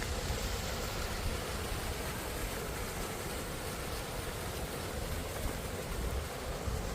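Steady, even rush of water falling over a waterfall.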